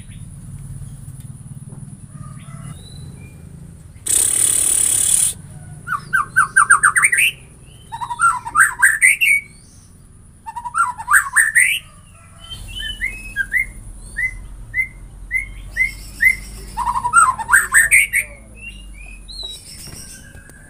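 White-rumped shama (murai batu) singing: several phrases of fast rising notes, with a run of short upslurred whistles near the middle. A harsh hiss lasting about a second comes about four seconds in.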